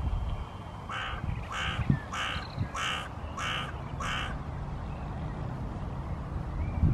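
A crow cawing six times in an even series, close to two caws a second, over a low rumble.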